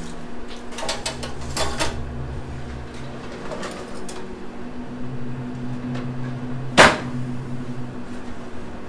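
Rustling as a bunch of sunflowers is handled, about a second in and again near four seconds, then one sharp knock about seven seconds in, the loudest sound, over a steady low hum.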